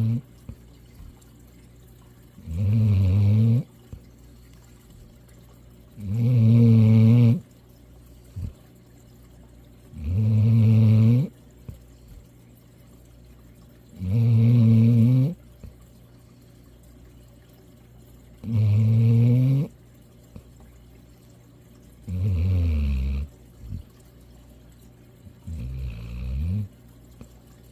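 Black Labrador retriever snoring: seven snores, each about a second long, at a steady rhythm of roughly one every four seconds.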